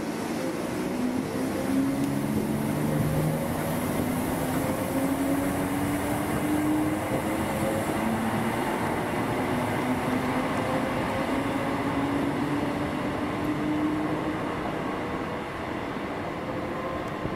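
ScotRail Class 320 electric multiple unit accelerating, its motor whine slowly rising in pitch over steady rolling noise.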